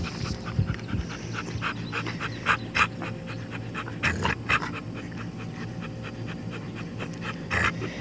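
Rottweiler panting rapidly, about four quick breaths a second, over a steady low hum.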